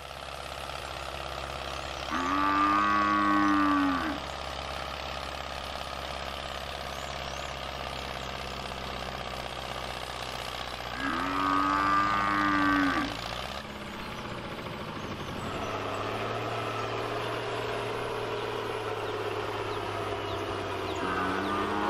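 Cattle mooing: three long moos, each about two seconds, roughly ten seconds apart, the last at the very end, over a steady low hum.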